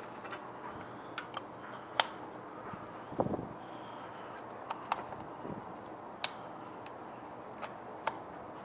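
Distributor cap being fitted back onto an air-cooled VW engine's distributor by hand: scattered sharp clicks of the cap and its spring clips, with a duller knock about three seconds in.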